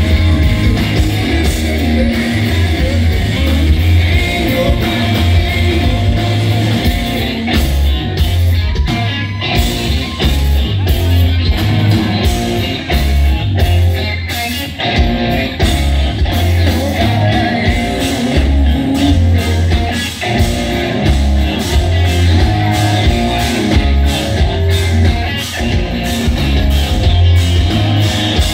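Live rock band playing at full volume: electric guitars, bass guitar and drums, with a pulsing bass line under a steady drum beat.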